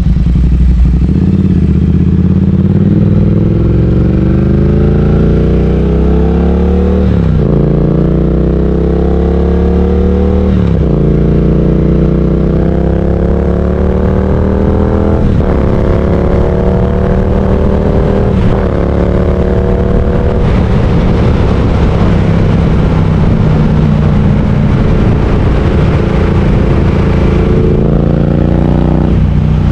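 Triumph Speed Twin 1200's parallel-twin engine under way, its pitch climbing and then dropping sharply at about four upshifts in the first twenty seconds. After that it holds a steady cruise until its pitch drops again near the end.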